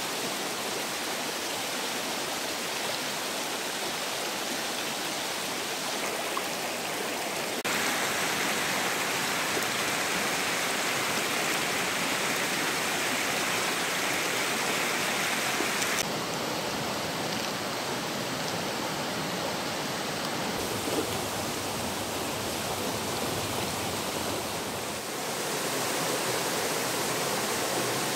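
Rushing water of a rocky forest stream and small waterfall cascading over stones, a steady, dense rush. Its tone shifts abruptly about 8, 16 and 25 seconds in.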